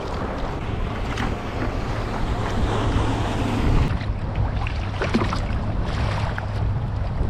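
Wind buffeting the microphone over open water from a kayak, with water splashing and a few short knocks, over a low steady hum.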